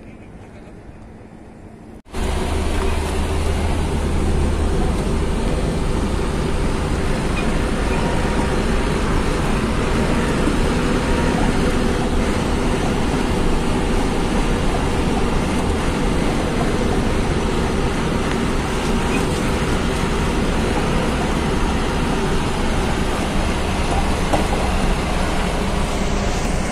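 Faint outdoor ambience for about two seconds, then a cut to loud, steady engine and road noise heard from inside the cab of a vehicle driving along a rough dirt haul road, with a low drone underneath.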